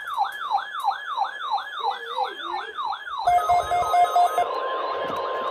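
Emergency alert receivers sounding their alarms. An electronic siren tone sweeps downward in pitch about three times a second. About three seconds in it gives way to rapid beeping over hiss, and near the end to a steady single-pitch warning alarm tone.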